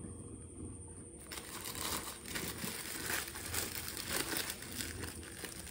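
A clear plastic bag of cotton balls crinkling as it is handled. The crackles start about a second in and come irregularly.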